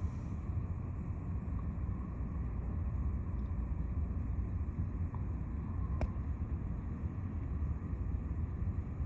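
Steady low rumble of outdoor background noise, with one brief click about six seconds in.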